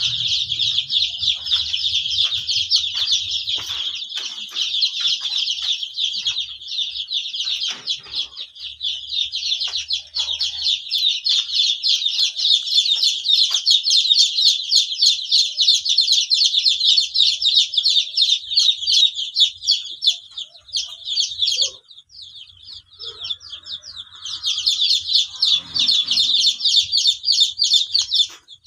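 A brood of about a hundred kampung chicks (Indonesian native chickens) peeping constantly in a dense, high-pitched chorus. The chorus drops away for a moment about three quarters of the way through, then picks up again.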